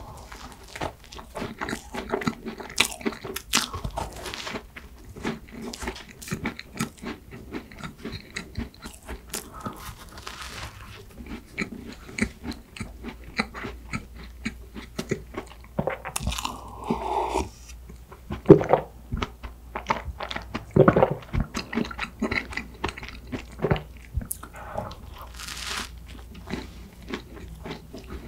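Close-miked eating of a soft, powdered bread bun: bites and steady chewing with many small wet mouth clicks, plus a few louder bites in the second half.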